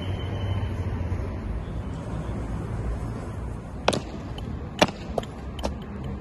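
Low steady rumble of wind and city traffic. About four seconds in, several sharp clicks: an honor guard's boot heels striking the stone paving as he marches.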